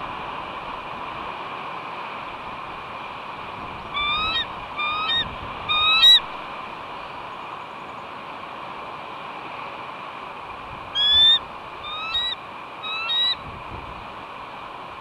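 Bald eagle calling from the nest: two series of three short, clear, rising calls, several seconds apart, over steady wind noise. The calls are typical of a nesting eagle's alarm and calls to its mate while crows harass the nest.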